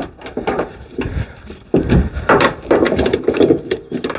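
Ratchet tie-down strap being cranked tight, the handle's pawl clicking over the gear in quick runs that grow busier from about two seconds in.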